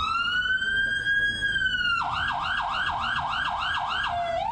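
Electronic siren of a new Scania fire engine. It starts on a slow wail, rising and holding. About two seconds in it switches to a fast yelp of about four sweeps a second, then near the end drops back into a new rising wail.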